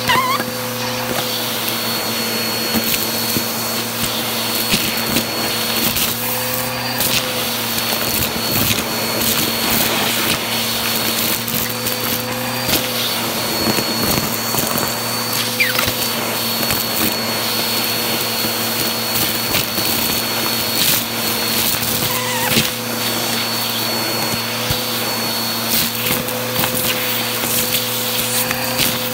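Vacuum cleaner running with its hose and crevice tool sucking up a pile of dust, lint and small hard debris such as candy and coins from carpet. Steady motor hum and rushing air, with many quick clicks and rattles as the pieces shoot up the hose, and the tone dipping briefly a few times.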